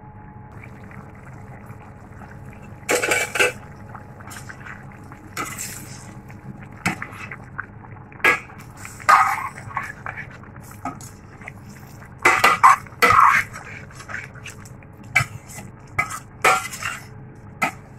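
A utensil clinking and scraping against a metal pot of simmering chicken curry, in irregular knocks that come more often and louder past the middle, over a low steady hum.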